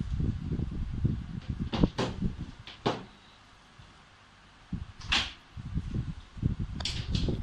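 Handling noise: irregular low rumbling bumps with several sharp clicks and taps, and a quiet pause of about a second and a half in the middle.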